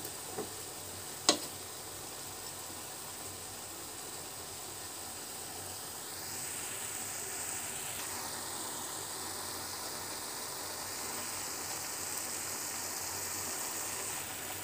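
Chicken pieces sizzling steadily in a pan in the water they have released, the hiss growing a little louder about six seconds in. A metal spoon knocks once against the pan about a second in.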